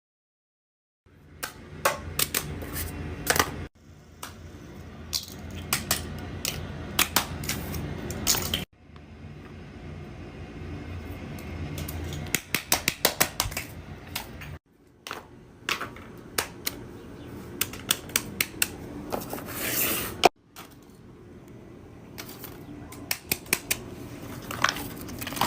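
Small plastic fidget toys being handled, with irregular sharp clicks and clacks over a low steady hum. The sound comes in several short stretches separated by abrupt cuts.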